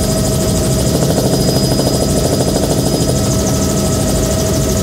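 Bell 206B3 JetRanger helicopter in cruise flight, heard from inside the cabin with the doors off: the steady high whine of its turboshaft engine over the rotor's rumble and wind noise rushing through the open doorway.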